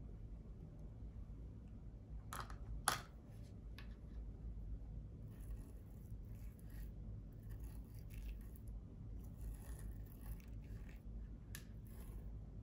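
Fingers pressing and rubbing loose glitter and sequins into clear slime, giving many light scratchy crackles from about five seconds in. Two sharp clicks a little after two seconds in, the second the loudest.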